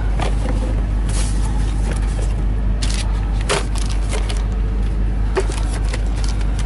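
Cardboard box flaps and packaging handled, giving scattered scrapes and short clicks, over the steady low hum of the truck's idling engine.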